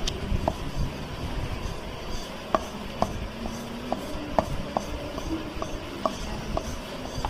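Thin wooden rolling pin rolling out wheat roti dough on a board: a low rolling rumble with irregular light clicks, about two a second from the middle on.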